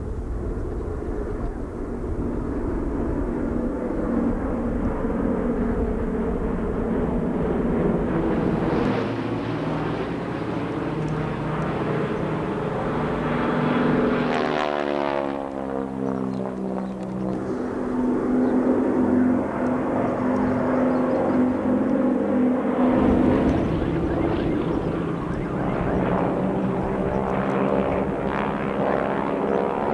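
North American Harvard trainers' Pratt & Whitney R-1340 Wasp radial engines and propellers droning overhead in formation. About halfway through, the drone sweeps steeply down in pitch as aircraft pass by.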